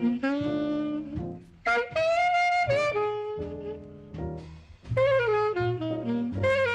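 Jazz saxophone soloing in quick melodic phrases over a walking bass. A long held note comes about two seconds in, then a quieter run, and the busy phrases start again near the five-second mark.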